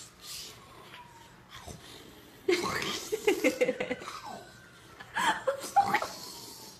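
A person laughing in two bouts, the first starting about two and a half seconds in and the second around five seconds in.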